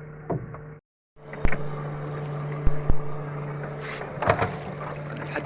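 Small motorboat engine running with a steady drone, broken by a short silent gap about a second in. A few sharp knocks sound over it after the gap.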